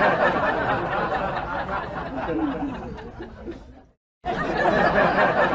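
Many people chuckling and chattering at once. It cuts out briefly about four seconds in, then starts again.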